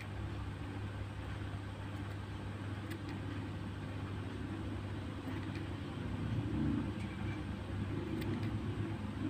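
A steady low rumble and hum, a little louder about six to seven seconds in, with a few faint clicks from scissors snipping a foam fishing float.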